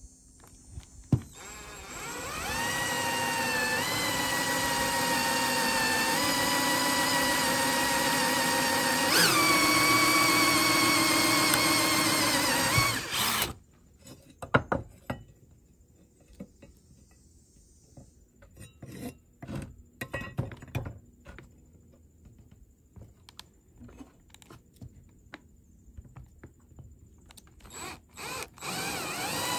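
Cordless drill running for about eleven seconds as a twist bit bores through a thin metal bracket into a wood block, its whine stepping up in pitch partway through. Then a stretch of scattered clicks and knocks, and the drill starts again near the end.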